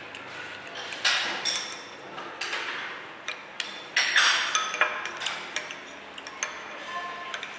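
Irregular clinks and knocks of utensils against dishes, a dozen or so sharp hits with short metallic ringing after some of them, the loudest cluster about four seconds in.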